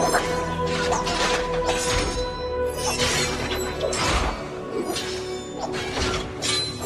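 Orchestral film score with the crashes and clashes of a battle over it: a sharp hit roughly every second.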